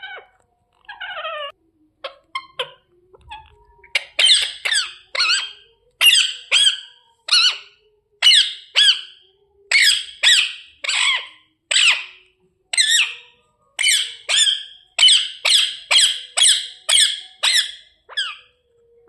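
Indian ringneck parrot calling: a few soft chattering notes, then from about four seconds in a rapid series of short, loud, shrill squawks, about two a second, each sweeping down in pitch.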